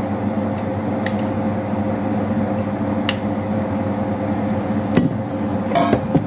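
Steady hum of a room air conditioner, with a few light clicks and clinks of small objects being handled, three spaced apart and then a quick cluster near the end.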